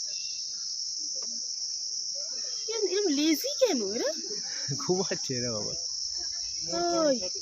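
Steady high-pitched chirring of insects in the forest trees. A few pitched, sliding calls rise and fall over it from about three seconds in, and again briefly near the end.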